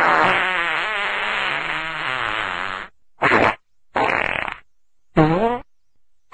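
Fart sounds: one long fart of about three seconds, wavering in pitch, then three short farts in quick succession.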